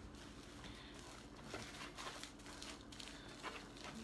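Faint, irregular crinkling of plastic wrap being rolled tight around a salmon fillet.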